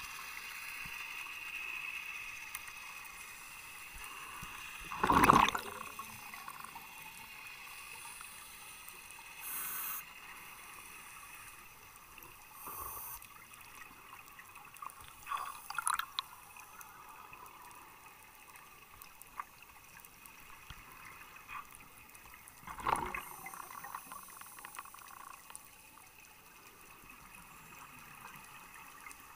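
Water bubbling and gurgling in short bursts every few seconds, the loudest about five seconds in, over a faint steady hiss.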